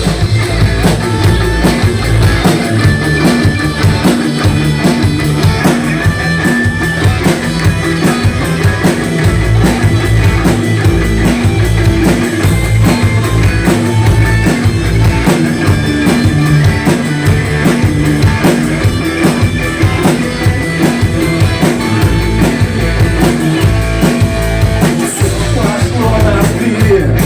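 Rock band playing live through an instrumental solo section, over a steady, driving drum beat and bass.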